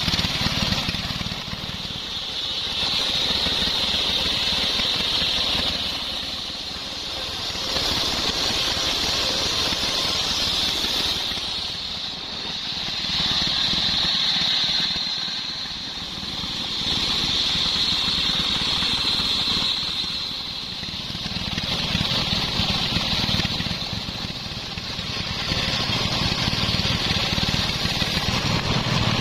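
Homemade belt-driven circular saw ripping sengon (albizia) wood. Its high whine swells as the blade bites into each cut and eases between passes, about every four to five seconds, over the steady running of the engine that drives it.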